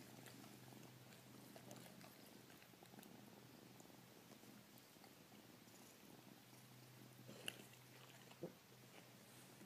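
Very faint, steady purring from a kitten, barely above near silence, with two soft clicks about a second apart near the end.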